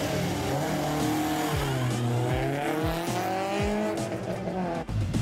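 Race car engine revving as it accelerates, its pitch rising and falling, with a brief break near the end.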